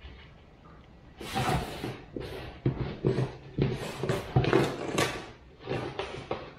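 Handling noises at a workbench: a quick, irregular run of rustles and knocks, starting about a second in.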